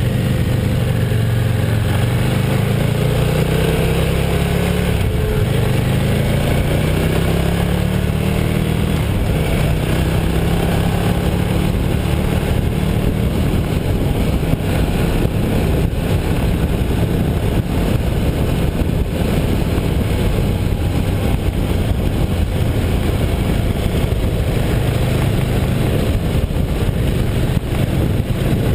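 Motorcycle engine running at road speed, its pitch rising and falling a few times in the first several seconds, with wind noise on the microphone.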